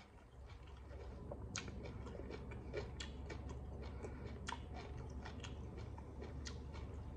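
A person chewing a mouthful of rice and fish close to the microphone, with many small, irregular wet clicks and smacks over a steady low hum.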